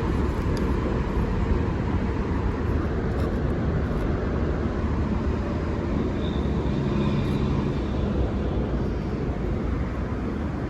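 Steady low rumble of outdoor background noise, with faint humming tones partway through.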